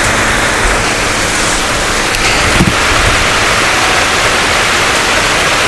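Heavy storm rain falling steadily, loud and unbroken.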